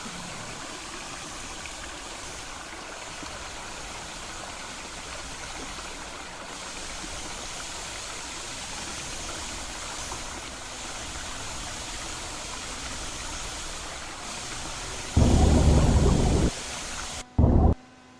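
Steady rushing water, an even hiss, then a loud deep rumble of about a second near the end, followed by a shorter one.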